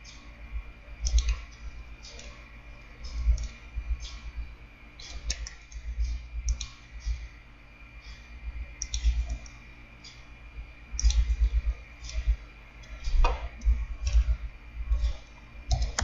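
Computer mouse clicking, irregular single clicks and quick clusters, each with a low dull knock from the desk.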